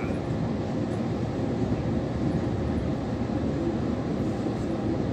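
Steady low running noise of a moving Egyptian passenger train, heard from inside the carriage.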